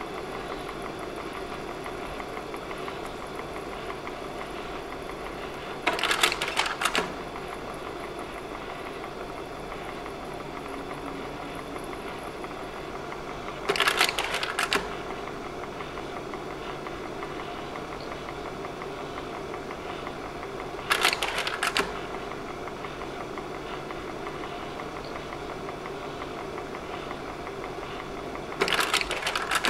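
Slide projector: its cooling fan runs with a steady hum, and the slide-change mechanism clatters for about a second four times, roughly every seven to eight seconds, as slides are changed.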